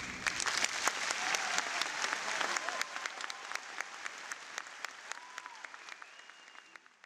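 Audience applauding, the clapping starting at once and thinning out and fading away over about six seconds.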